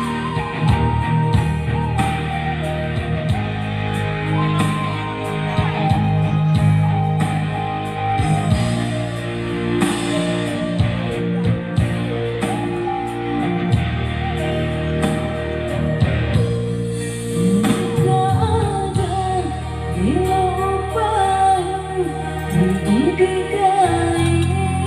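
A pop song with full band backing and a steady drum beat. It opens instrumental, and a singing voice comes in about two-thirds of the way through.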